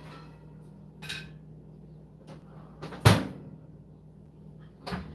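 A few sharp knocks and clunks of kitchen things being handled on the counter, the loudest about three seconds in, over a low steady hum.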